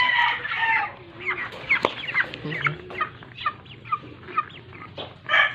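Broiler chickens in a wire cage clucking and giving short squawks. A loud drawn-out call ends about a second in.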